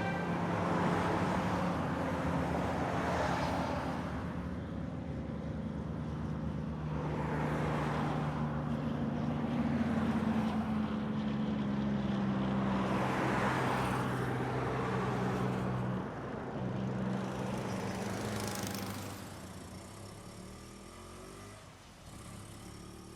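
Road traffic: vehicles passing one after another, each swelling and fading, over a steady low engine hum. The sound falls away near the end.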